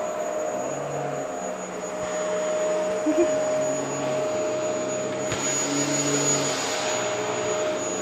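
Vacuum cleaner running steadily, a rush of air with a constant whine. About five seconds in there is a click and the hiss gets louder.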